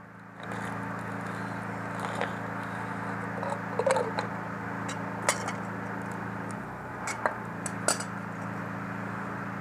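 A steady low hum runs throughout, broken by a handful of short, light clicks and knocks.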